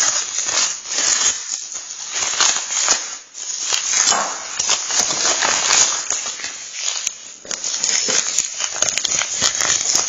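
Packaging being handled and unwrapped: dense crinkling and rustling with many small crackles, in uneven handfuls with short pauses.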